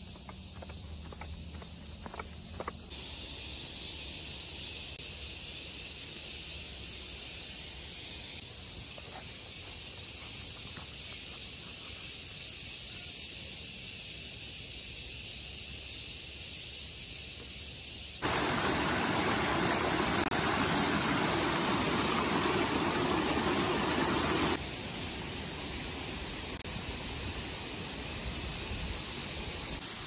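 Steady hissing outdoor ambience with no single clear source. Its level steps abruptly up or down a few times, and for about six seconds past the middle it is louder and fuller. A few faint ticks come in the first three seconds.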